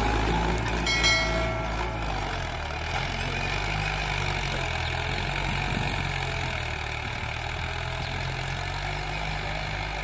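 Mahindra Arjun Ultra-1 555 DI tractor's four-cylinder diesel engine running steadily under load while pulling a tine cultivator through the soil. It grows fainter over the first few seconds as the tractor drives away, then holds steady.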